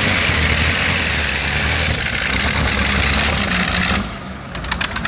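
Engines of a multi-engine modified pulling tractor running loudly and steadily at low throttle, with a strong hiss over a deep engine note. About four seconds in, the sound drops off sharply and a fast clicking rattle follows.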